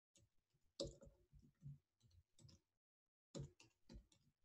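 Faint, irregular clicking of computer keyboard keys being typed: about a dozen keystrokes in two clusters, with a pause of about a second in the middle.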